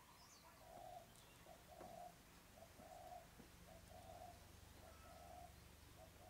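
Near silence with a faint bird cooing in the background, a short note followed by a longer one, repeated about every second. A faint steady low hum lies underneath.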